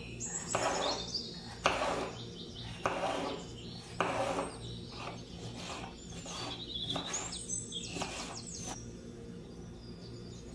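Kitchen knife slicing a red bell pepper on a bamboo cutting board: a run of uneven cuts and knocks of the blade on the board, a few of them sharper, stopping near the end. Small birds chirp high in the background.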